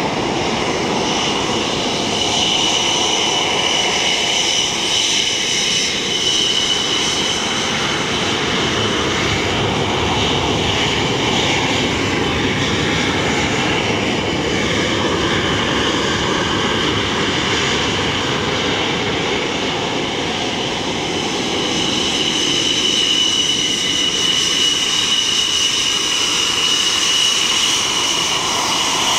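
English Electric Lightning F6's twin Rolls-Royce Avon turbojets running as the jet taxis, a steady roar with a high engine whine. The whine weakens in the middle and comes back strongly near the end as the aircraft turns its intake toward the listener.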